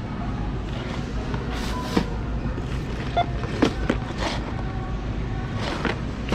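Cardboard Lego boxes handled and scanned at a self-checkout: a few knocks and rustles of the boxes, with short single-tone beeps from the scanner, over a steady low store hum.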